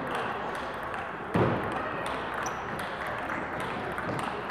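Table tennis balls clicking off rackets and tables during rallies, sharp light ticks several times a second over the hum of a sports hall, with one louder thump about a second and a half in.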